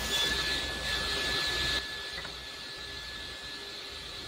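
Table saw ripping a thin trim cut through a glued-up strip of hardwoods; the cut ends suddenly about two seconds in, and the blade then spins freely with a steady high whine.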